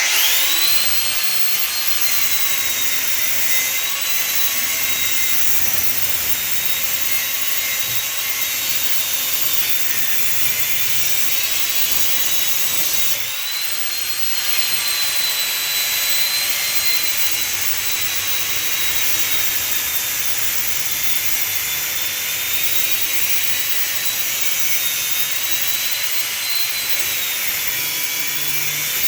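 Angle grinder spinning up and cutting into heavy brass, a steady high-pitched whine whose pitch wavers gently as the disc is worked over and back rather than forced. About halfway through it briefly drops and then picks up again.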